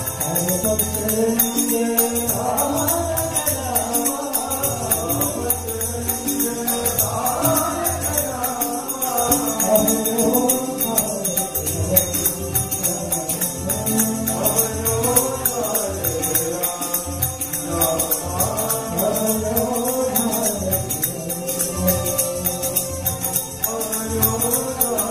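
A group of devotees singing a Hindu devotional bhajan to Rama in chorus, over a steady beat of hand percussion.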